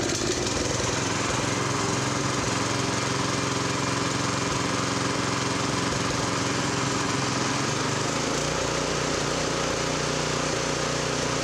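Single-cylinder GX160-clone engine on a rototiller running steadily without load, no longer surging or hunting now that its pilot jet has been opened up to cure a lean surge. It sounds a lot smoother.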